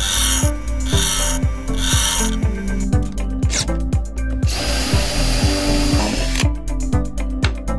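A bench grinder wheel grinding the tip of a twist drill bit in three short passes, then a power drill boring into a wooden block for about two seconds with the freshly sharpened bit. Background electronic music with a steady beat plays throughout.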